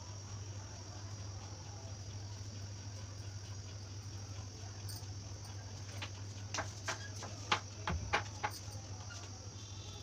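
Steady background noise, a high-pitched whine with a low hum under it, and a quick run of small clicks or taps between about six and eight and a half seconds in.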